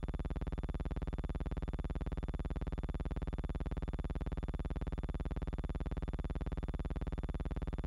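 A steady electrical buzz with a fast, even pulse, unchanged throughout: soundtrack hum rather than the aircraft.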